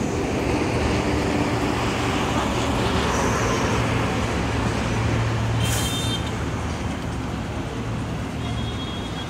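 Steady low hum of a heavy truck's engine running, with road traffic noise around it and a short hiss about six seconds in.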